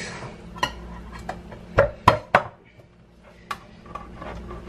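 About half a dozen sharp knocks and clinks of kitchen utensils against a metal cooking pot, irregularly spaced, with three coming close together about two seconds in.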